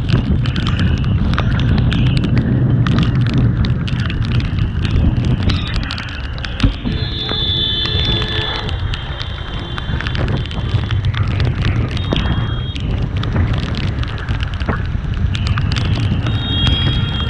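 Wind buffeting a motorcycle rider's microphone on the move: a loud, steady low rumble with scattered ticks. A steady high-pitched tone sounds for about two seconds midway, and briefly twice more later.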